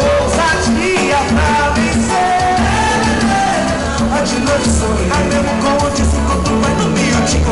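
Live band music with a steady beat and a bass pulse under a melody.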